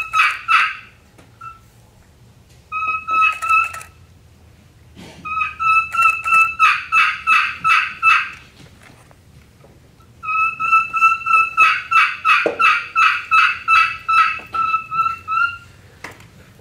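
Friction turkey call played as a kee-kee run: bouts of steady, high whistled kee notes, each breaking into a quick string of yelps at about three or four a second. It imitates a young wild turkey's lost call. There are four bouts, the longest near the end.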